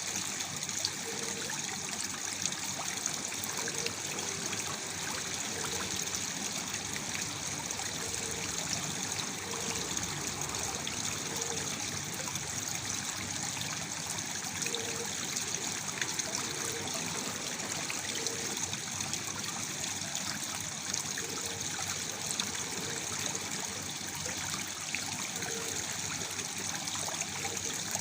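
Small waterfall: water falling and splashing steadily, with a continuous trickling rush.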